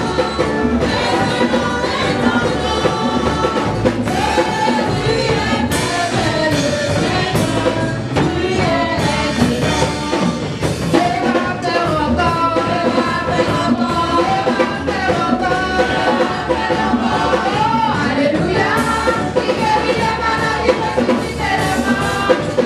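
Live gospel praise singing: women's voices into microphones over a band with a drum kit, loud and steady throughout.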